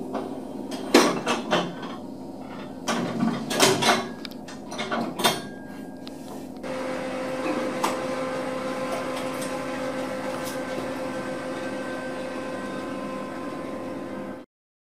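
Metal clanks and knocks at a pet cremation furnace as the attendant works at its loading mouth. About six and a half seconds in, a steady mechanical hum with a held whine starts up and runs on: the furnace machinery running.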